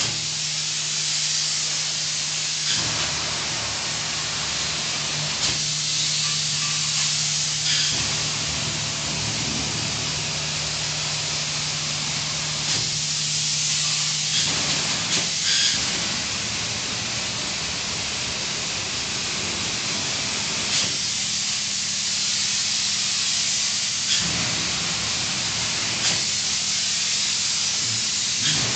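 Polyurethane spray-foam gun hissing steadily as it sprays insulation foam, over a steady low hum, with short clicks every few seconds.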